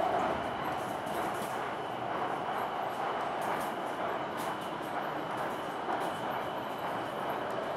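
Shenzhen Metro Line 11 train running along the line, heard from inside the passenger car: a steady rushing noise of wheels on rail and air, with a faint steady high tone above it.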